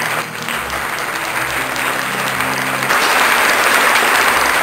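Audience applauding with steady clapping, which grows louder about three seconds in. Background music holds low notes underneath.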